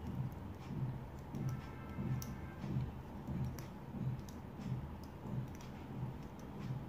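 Tatting shuttle and thread being worked by hand: soft low thumps about one and a half times a second with scattered light clicks, as double stitches are formed.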